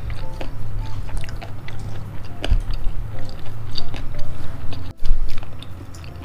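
Close-miked chewing of a mouthful of spicy boneless chicken feet: a run of wet mouth clicks and smacks over a low steady hum.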